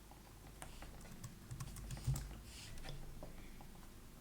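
Typing on a computer keyboard: a run of irregular keystrokes, with one heavier thump about two seconds in.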